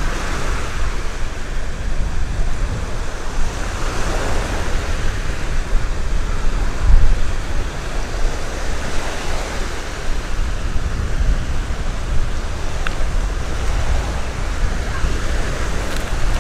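Black Sea surf washing onto the beach, swelling and breaking every few seconds, with wind rumbling on the microphone.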